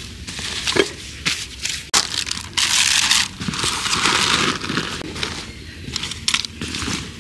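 Camping gear being handled and packed away: rustling and crinkling of bags and fabric, with scattered small knocks and clicks, busiest in the middle.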